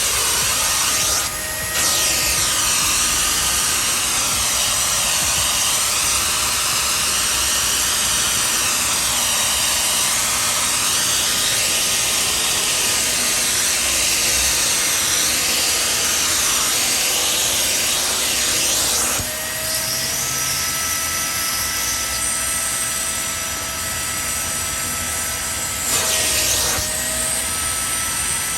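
Hart 3-in-1 wet/dry vacuum and extractor running, its motor a loud, steady rush of suction with a thin whine over it, as the machine shampoos a carpet floor mat. The whine shifts slightly in pitch twice, past the middle and near the end, as the load on the suction changes.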